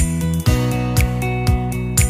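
Background music with sustained chords and a steady beat, about two beats a second.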